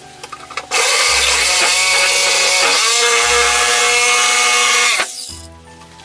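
Electric jigsaw running and cutting wood. It starts after a few light clicks about a second in, with the motor pitch dipping and recovering under load, and stops about five seconds in.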